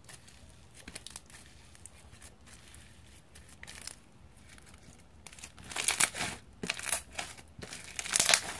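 Hand-worked green slime being stretched, folded and squeezed, giving quick runs of small wet pops and clicks: faint at first, then louder and denser from a little past halfway.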